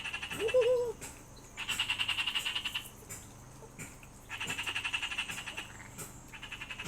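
A frog calling over and over in rapid trills, each about a second long, coming roughly every two and a half seconds. A puppy gives a short whine about half a second in.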